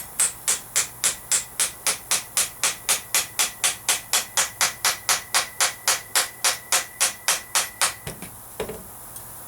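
Steady hammer blows on the steel U-joint and axle shaft yoke, about three and a half a second with a faint metallic ring, stopping a little before the end. The blows drive the U-joint in by hand rather than in a vise.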